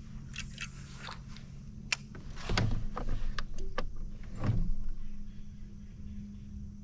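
Knocks, scrapes and rustling of a fishing rod and gear being handled in a plastic kayak, loudest from about two and a half to five seconds in, over a faint steady low hum.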